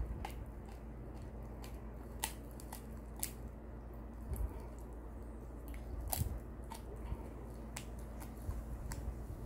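Shiba Inu gnawing and chewing a large bone treat held in a hand: scattered sharp crunches and clicks of teeth on the hard treat, with wet chewing between them.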